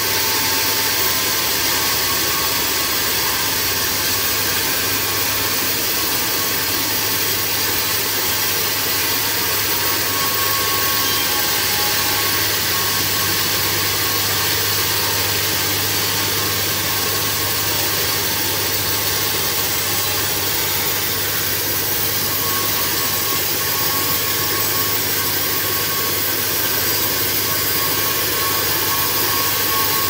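Home-built log bandsaw sawmill running as its blade rips lengthwise through a large log: a steady, unbroken machine noise with a low hum under it.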